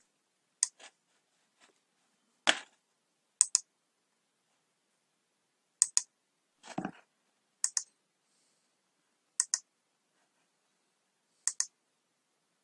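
Scattered clicks at a computer keyboard and mouse: six sharp double clicks spaced about two seconds apart, with a duller knock near 2.5 seconds and another near 7 seconds.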